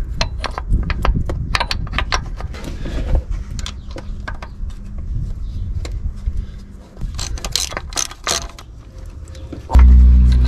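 Irregular sharp metal clicks and clinks of hand tools and engine parts as a timing belt tensioner is worked into place. Near the end a loud, steady low hum starts suddenly.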